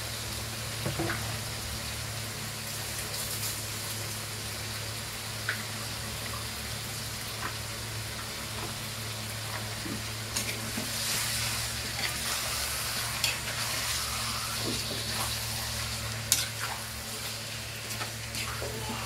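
Marinated chicken pieces sizzling in a wok while a metal spatula stirs them, scraping and knocking against the pan. The knocks come more often in the second half.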